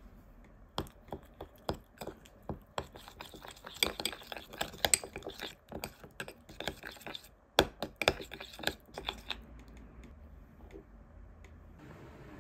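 Metal teaspoon stirring a wet garlic-and-spice sauce in a small glass bowl, clinking and scraping against the glass in quick irregular taps for about eight seconds before stopping.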